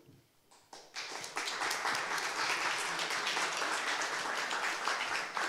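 Audience applauding, starting about a second in and keeping up steadily after a speech ends.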